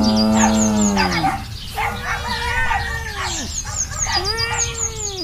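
Farmyard animal sound effect: a cow's low, steady moo that falls away and ends about a second in, followed by two long calls that rise and then drop off, with small birds chirping throughout.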